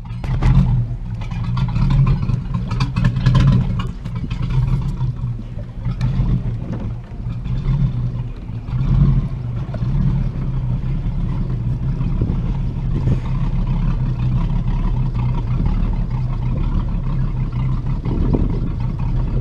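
Rinker Captiva 21-foot stern drive's inboard engine running steadily at low speed as the boat motors along. There are a few knocks and rattles in the first several seconds.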